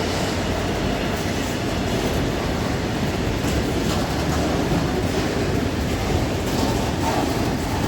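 Freight train hauled by a Class 66 diesel locomotive passing through, its wagons rolling by with a steady rumble and occasional wheel clicks.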